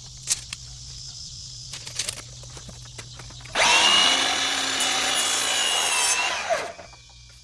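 A few sharp clicks, then a power saw cutting garage door weatherstripping to length for about three seconds, winding down in pitch as it stops.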